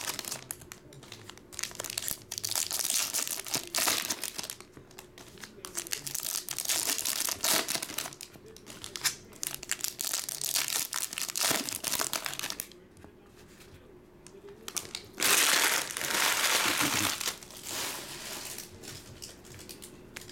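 Foil trading-card pack wrappers crinkling and tearing as packs are ripped open and handled by hand, in irregular bursts. The rustling eases off about two-thirds through, then comes back loudest for a couple of seconds.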